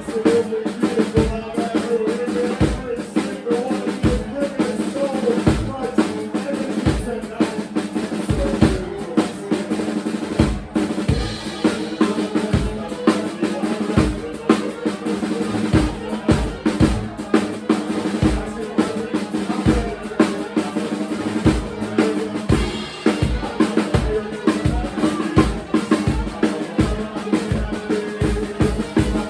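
Live band playing a song, with the drum kit leading: a steady kick-and-snare beat over sustained low notes.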